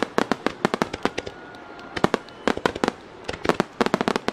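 Fireworks finale barrage: aerial shells bursting in rapid volleys, sharp bangs coming in quick clusters several to the second, densest near the end.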